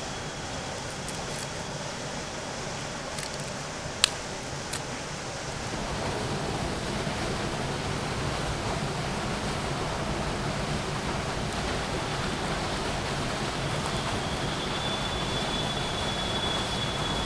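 Steady rushing noise of flowing water, growing louder about six seconds in, with a single sharp click about four seconds in and a faint high steady tone near the end.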